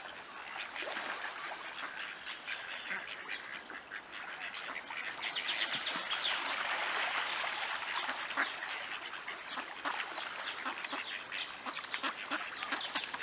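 A flock of ducks quacking and splashing as they crowd and jostle in the shallow water for thrown bread; the calls and splashing grow busier and louder about halfway through.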